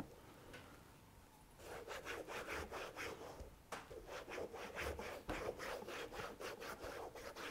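Leather shoe sole being rubbed to wet it with water, quick back-and-forth rubbing strokes about four or five a second, starting about a second and a half in; this dampening softens the leather so the hobnails go in easily.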